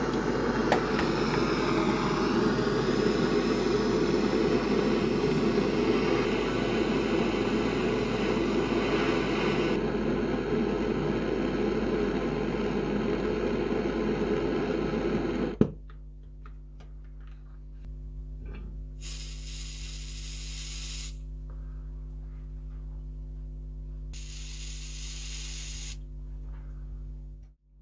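Handheld gas blowtorch burning with a steady rushing flame noise as it heats the rusted steel socket of a bayonet, cut off with a click a little past halfway. Then an aerosol can sprays through a straw nozzle in two hissing bursts of about two seconds each.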